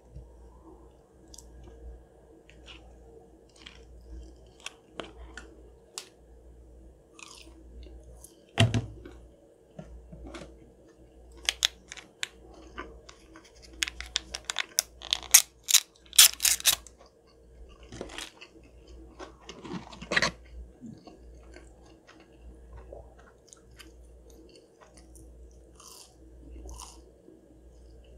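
A person chewing crispy breaded Chick-fil-A chicken nuggets close to the microphone: wet mouth clicks with crisp crunches, bunched together in a dense run around the middle.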